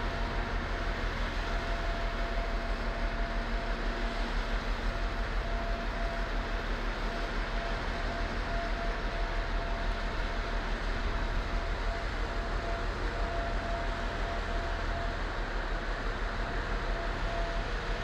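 Steady, unbroken heavy machinery din with a low hum and a faint thin whine that comes and goes.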